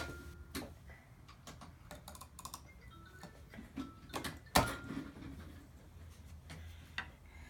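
Scattered light clicks and taps of hand tools being handled, with one sharper knock about four and a half seconds in.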